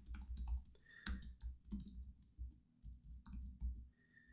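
Quiet, irregular typing on a computer keyboard: short runs of keystroke clicks with brief pauses between them.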